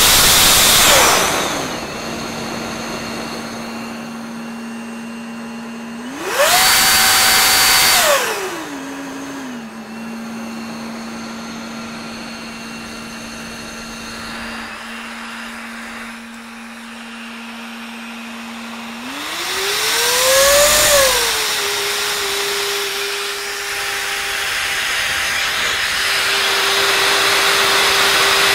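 Electric supercharger on a test bench, driven by an LMT 3080 motor on an MGM 30 kW controller, running with a steady motor whine whose pitch steps up and down as it is throttled. It surges three times, near the start, about seven seconds in and about twenty seconds in, each time with a loud rush and the whine climbing, then settles back to a lower steady whine.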